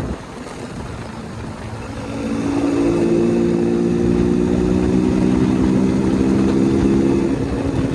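KTM single-cylinder motorcycle engine running low and uneven, then revved up about two seconds in and held at a steady higher rev for around four seconds before dropping back near the end.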